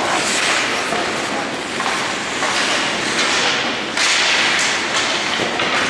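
Ice hockey play: skate blades scraping across the ice in swells of hiss, with sharp knocks of sticks and puck, the sharpest about four seconds in.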